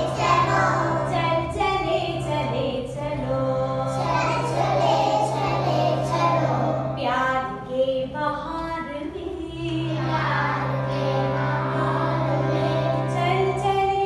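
A group of young children singing a song together to a harmonium, which holds a steady low drone under the voices. The drone drops out for a couple of seconds midway and then comes back.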